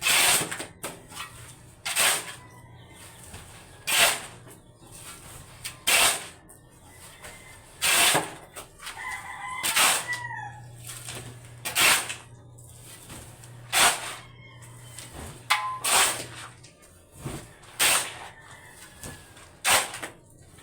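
A short, loud noise repeats about every two seconds, steady like work strokes. A rooster crows about nine seconds in.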